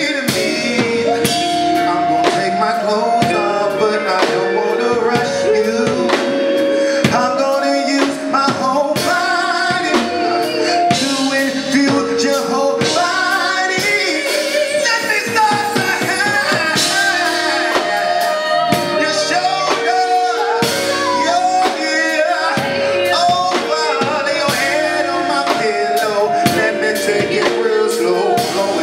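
Live soul duet: a man and a woman singing together, backed by a band with keyboard, guitar and drums. The voices hold long notes over the steady beat.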